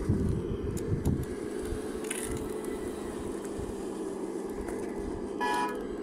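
Radio-controlled model excavator's motor and hydraulic pump running steadily as it swings and raises its boom, with a few knocks in the first second. A short horn toot sounds near the end.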